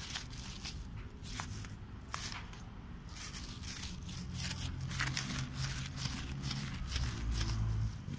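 Scattered crunches and clicks of loose gravel underfoot, irregular and close, over a steady low rumble that grows a little louder in the second half.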